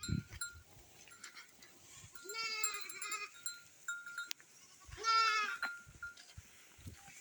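Goats bleating: two drawn-out, wavering bleats, the second the loudest, with a faint high ringing tone coming and going and a low thump at the very start.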